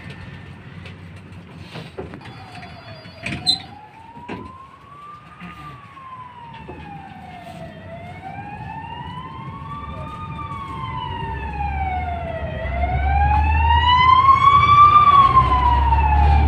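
Fire engine siren wailing, its pitch slowly rising and falling about every five seconds and growing louder as the truck draws level, heard from inside a moving tram. A low rumble swells under it near the end.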